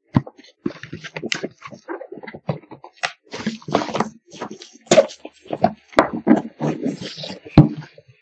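A cardboard headset box being opened by hand and a bubble-wrapped headset pulled out: irregular rustling and crinkling of plastic wrap and cardboard, with a couple of sharp knocks in the second half.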